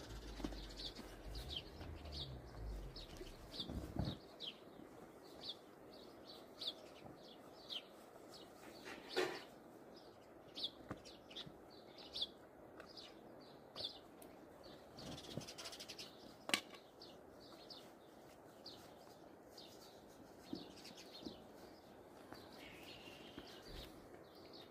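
Small birds chirping over and over, short high falling calls about one or two a second. A low rumble sounds for the first four seconds, and two sharp knocks stand out at about nine and sixteen seconds in.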